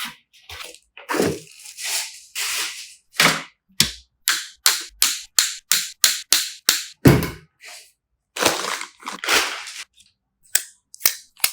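Sharp clicks and knocks of PC components being handled and snapped into place, with a quick run of two or three clicks a second midway, one heavier knock just after, and some scraping handling noise near the end.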